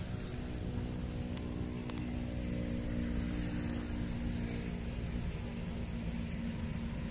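An engine running steadily at a constant pitch, with one sharp click about a second and a half in.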